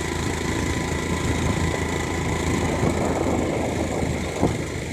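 Motorcycle engine running steadily, with a brief knock near the end.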